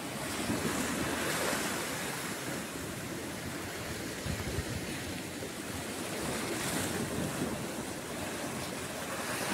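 Sea waves breaking and washing over rocks just below, a steady rushing wash that swells louder twice, with wind buffeting the microphone.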